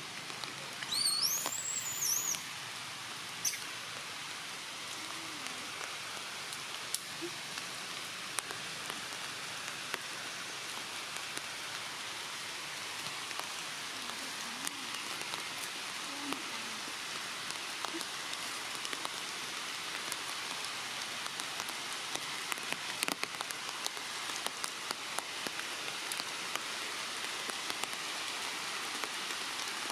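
Steady light rain falling on forest leaves, a constant hiss with scattered sharp drops, thicker near the end. A short high-pitched chirp sounds about a second in.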